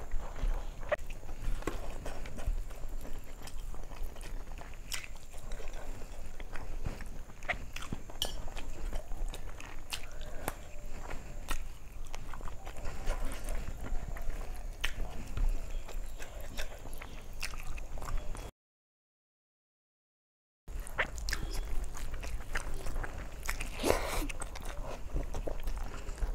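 Close-miked eating by hand: fingers squelching and mixing rice with fish curry on a steel plate, with chewing and wet mouth clicks. The sound cuts out to complete silence for about two seconds about two-thirds of the way through.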